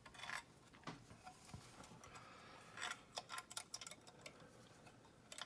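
Faint, irregular metallic clicks and light scraping of a lock pick and tension wrench working inside a large padlock, with a small cluster of clicks about three seconds in.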